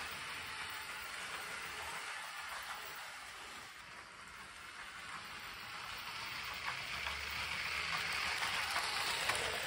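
Funwhole F9036 brick-built steam train rolling along plastic brick track: a dense, steady rattle of plastic wheels on the rails. It grows louder over the last few seconds as the train comes closer.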